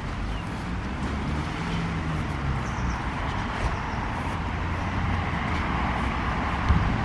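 Outdoor traffic noise: a steady rumble of road vehicles, swelling a little as one passes, with a single short knock near the end.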